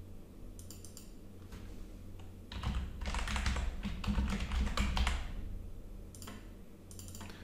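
Typing on a computer keyboard in bursts of rapid key clicks, the longest run in the middle.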